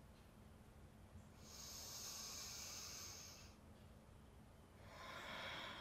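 Faint, slow breathing through the nose during a yoga breathing cue: one long breath of about two seconds, then a second breath starting near the end.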